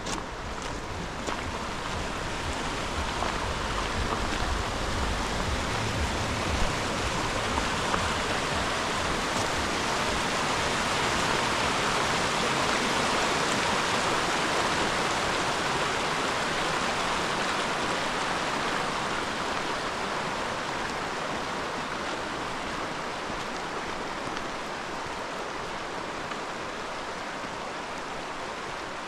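Mountain stream rushing steadily, growing louder toward the middle and fading again. A low rumble sits underneath during the first several seconds.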